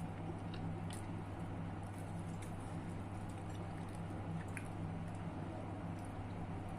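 A person chewing food, with small wet mouth clicks scattered through, over a steady low hum.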